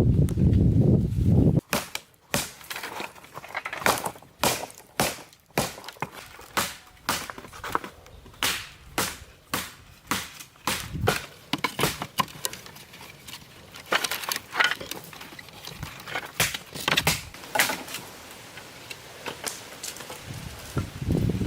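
Repeated sharp chopping blows of a hand tool, about two a second, with pauses between runs. A low rumbling noise comes at the very start and again near the end.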